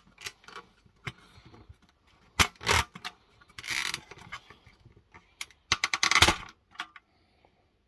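Sharp plastic and metal clicks and knocks, with one short scrape, as a small circuit board and its wiring are worked loose from a DVD player's metal chassis by hand. A quick cluster of clicks comes about six seconds in.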